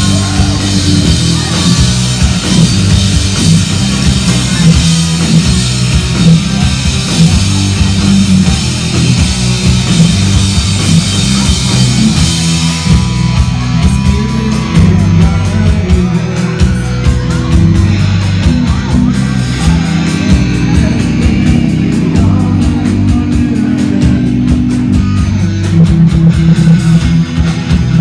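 Live rock band playing loud amplified music: distorted electric guitars, bass guitar and drum kit, with a vocalist singing at times.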